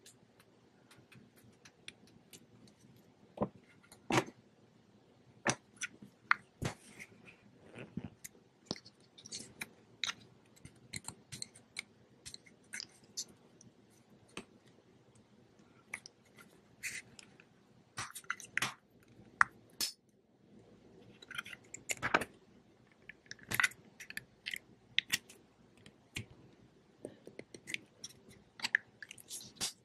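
Handling noise from a new GoPro camera and its packaging: scattered small clicks and taps, with a busier stretch of rustling about two-thirds of the way in.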